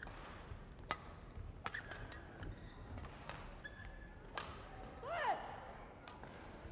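A badminton rally: sharp racket strikes on the shuttlecock about once a second, and a short squeal of shoe soles on the court floor a little past five seconds, the loudest sound.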